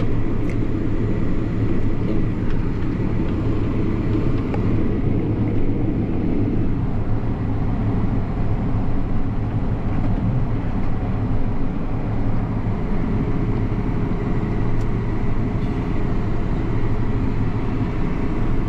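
Tractor engine running steadily under load, a constant low drone heard from inside the cab as it pulls a grain cart across the field.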